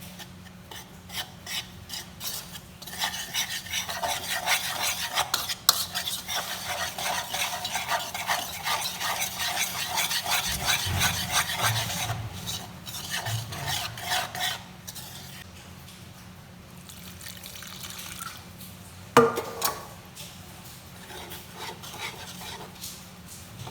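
A utensil rapidly stirring and mixing food in a bowl, scraping around it in quick strokes for about a dozen seconds, then slowing. A single sharp clank of metal comes a few seconds before the end.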